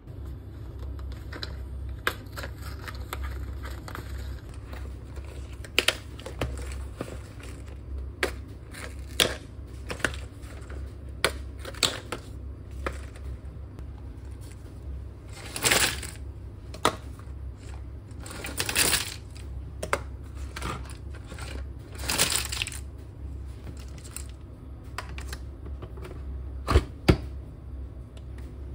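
Nespresso capsules dropping into a stainless-steel wire basket: scattered sharp clicks and clinks, with three short rattling pours as handfuls go in. Two loud clacks come near the end, over a steady low hum.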